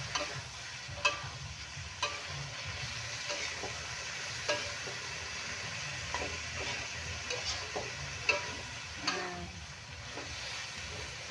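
Shrimp, carrots and green beans stir-frying in a metal wok: a steady sizzle, with a metal spatula scraping and clinking against the pan at irregular moments, about once a second. The shrimp are at the half-cooked stage, just turning colour.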